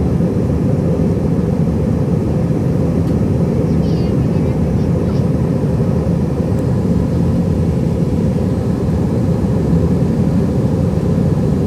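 Airbus A320-214 cabin noise during the climb after takeoff: the steady, low roar of its CFM56 jet engines and the airflow over the fuselage, even in level throughout.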